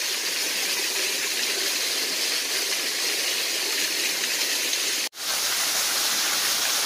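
Waterfall: a steady rush of water falling and running over rock, cutting out for an instant about five seconds in.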